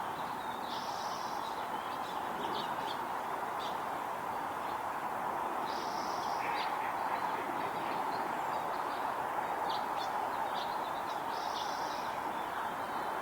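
Red-tailed hawk giving a short, high call three times, about five seconds apart, with brief sharp chips between the calls, over a steady background hiss.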